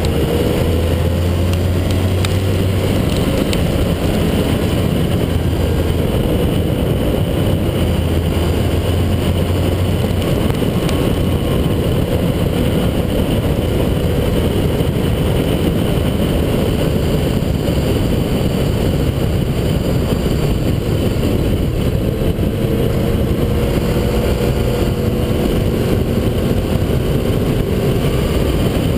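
A sport motorcycle at road speed, heard from a camera mounted low by the front wheel: a steady rush of wind and tyre noise over the mic, with the engine underneath. The engine note rises near the start and again near the end as the bike accelerates.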